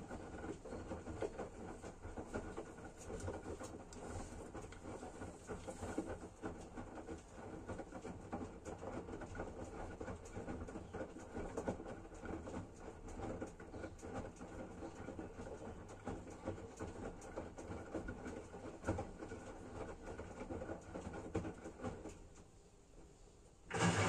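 Front-loading washing machine on its wash cycle: the drum motor hums steadily while the drum tumbles laundry through soapy water, with irregular sloshing and soft knocks. Near the end the drum stops for about a second and a half, then starts turning again, louder.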